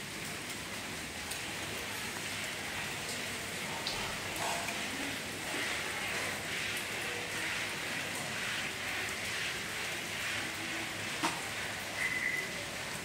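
Steady rain falling, an even hiss with scattered drop clicks, and a short chirp near the end.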